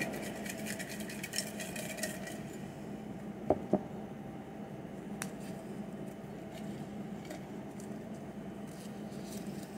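Folded paper slips rattling and rustling as they are shaken in a small container for about two seconds. Two light knocks follow about three and a half seconds in, then faint paper rustling as a slip is unfolded.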